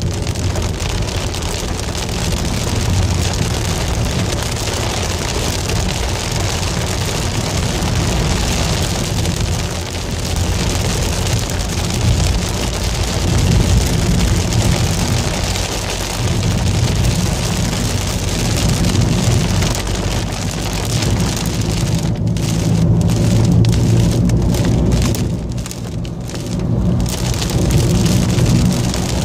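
Rain on a moving car, heard from inside the cabin: a steady hiss of rain and wet tyres over a low road and engine rumble.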